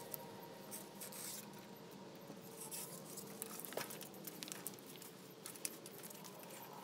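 Faint, irregular small clicks and ticks from a bicycle's chain drive and rear wheel turning as the cranks are spun by hand.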